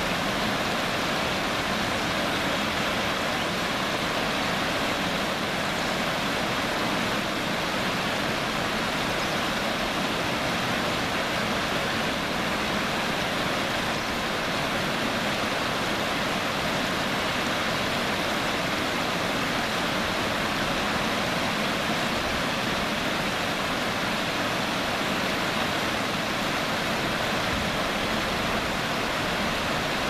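Shallow river running over rocks in small rapids: a steady, even rush of water.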